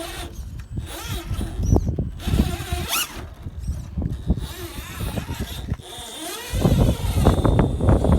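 Electric RC rock crawler running over rock: a thin motor and gear whine with crackling and clicks, growing louder and denser for the last couple of seconds.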